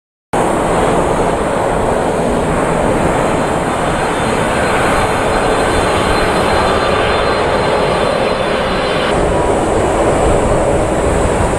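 Boeing 747-400's four jet engines running steadily as the jumbo jet comes in on final approach and flares to land. The sound sets in abruptly and turns deeper about nine seconds in.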